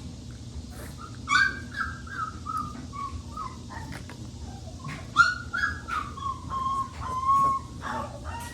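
Three-week-old Boerboel puppy whining, two long high whines that each slide slowly down in pitch, the first about a second in and the second about halfway through.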